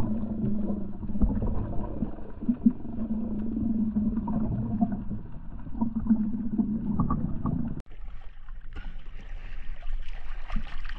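Muffled underwater sound: a steady low hum under rough, murky water noise. About eight seconds in it cuts off abruptly to open-air sea water sloshing and splashing against a boat's hull.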